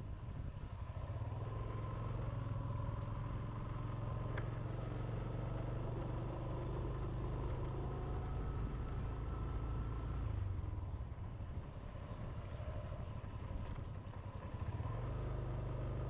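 Small motorbike engine running steadily while riding, with rushing wind noise; the level dips briefly twice past the middle.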